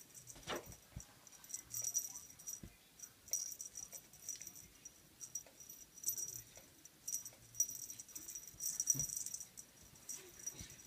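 A cat wand toy jingling and rattling in quick, irregular shakes as it is waved and batted by kittens.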